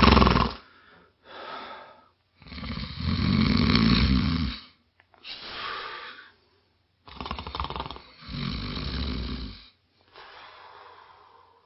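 A man snoring heavily in a steady breathing rhythm. Long, loud snores alternate with shorter, quieter breaths, and the last breath near the end is faint.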